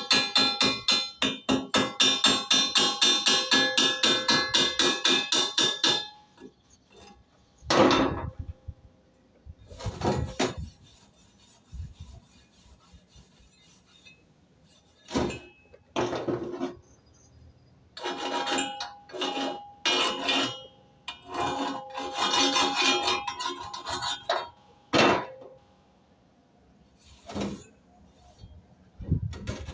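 Chipping hammer knocking slag off an E6013 stick weld on steel plate: fast, even ringing taps, about five a second, for about six seconds, then separate knocks and scrapes with a metallic ring.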